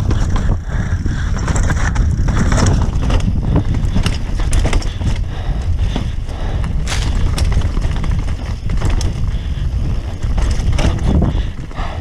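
Mountain bike descending a rough dirt and rock trail: tyres rolling and crunching over the ground and the bike rattling and clattering over rocks and ruts, with steady wind rumble on the microphone.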